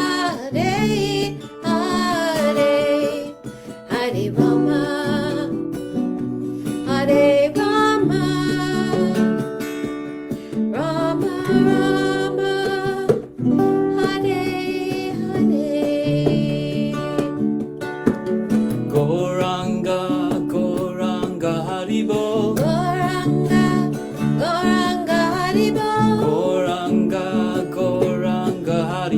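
Kirtan music: a voice sings a gliding devotional melody over sustained instrumental chords.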